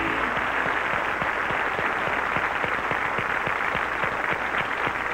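Studio audience applauding steadily after a gospel song, the last held music note cutting off just at the start.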